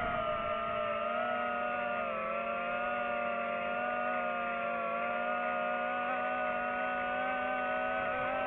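DJI FPV drone's motors and propellers buzzing at a near-steady pitch with slight wavers, the drone holding fairly even throttle.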